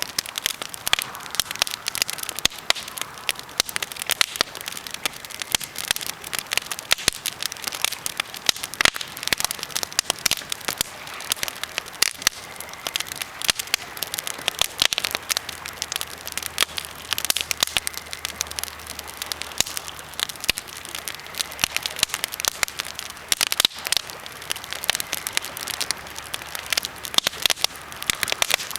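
Birch and pine campfire crackling, a dense, irregular stream of sharp pops and snaps from the burning wood.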